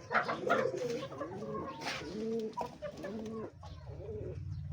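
Domestic pigeons cooing over and over, with chickens clucking softly, a few light clicks, and a low steady hum joining in the second half.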